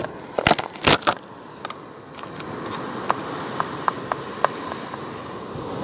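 Steady noise of surf and wind at the shore, with a few loud knocks in the first second and some faint ticks a few seconds in.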